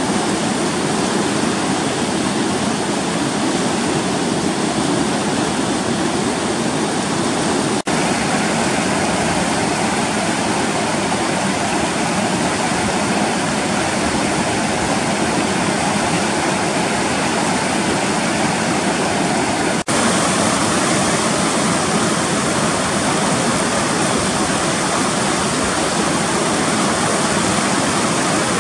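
Rapids of the Chulyshman, a fast mountain river, rushing over boulders: a steady, loud churning of white water, with two very brief dips at about 8 and 20 seconds in.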